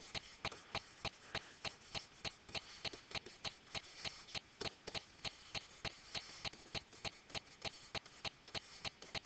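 Light, evenly spaced clicks, about four or five a second, from a stylus striking a digital writing surface as words are hand-written.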